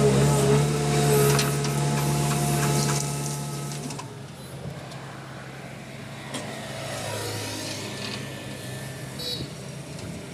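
JCB 3DX backhoe loader's diesel engine running close by at a steady pitch. About four seconds in it cuts off abruptly to a quieter roadside background with passing traffic.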